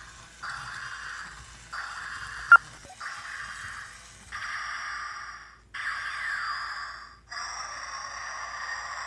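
Battery-operated kaiju robot monster toy playing its electronic growl sound effects through a small speaker in a run of short bursts, each about a second long and repeating about every second and a half. There is one sharp click about two and a half seconds in.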